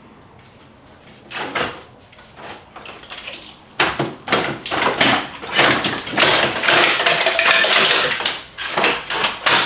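Irregular knocking, banging and rattling as stuck parts are forced loose from the front end of a wrecked BMW E46 M3 during teardown. It starts with a few separate knocks and becomes a dense, continuous clatter about four seconds in.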